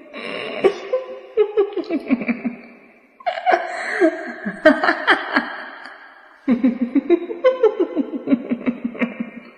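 A woman's laugh, a quick run of 'ha's, heard three times in a row, each time trailing off over about three seconds: a ghost's laugh.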